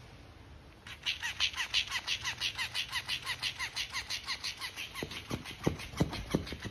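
Electric flopping fish toy starting up about a second in: its motor flaps the plush tail in a steady rhythm of about five beats a second. From about five seconds in, several thumps come as the flapping toy slaps against a hard surface.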